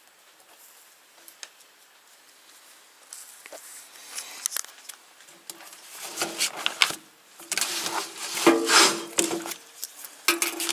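Gear and clothing being handled close to the microphone: irregular rustling and clattering that starts faintly about three seconds in and grows louder, with a low hum under the loudest handling.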